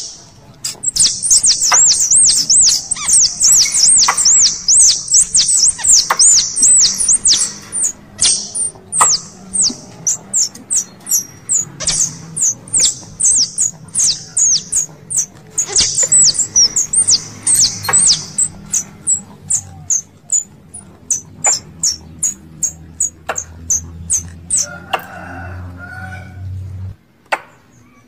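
Squirrel calls used as a hunting lure: long runs of rapid, high-pitched chattering chirps that break into separate sharp chips in the second half and stop shortly before the end.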